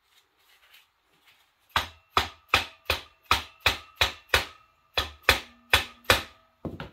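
About a dozen hammer blows on a metal engine part, roughly three a second with a short pause midway, each leaving a brief metallic ring. The blows are struck while forcing apart a seized Honda engine.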